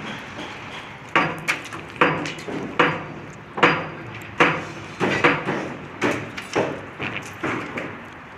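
Hammer blows struck over and over, roughly once or twice a second, each ending in a short ring.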